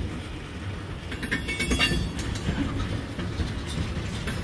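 Tank cars of a freight train rolling past, a steady low rumble of wheels on rail, with a short run of clicks about a second in.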